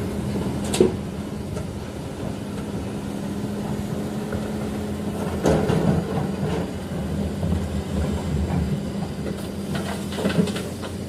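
The diesel engine of a heavy construction machine running steadily at low speed, with a few sharp metallic knocks about a second in, midway and near the end.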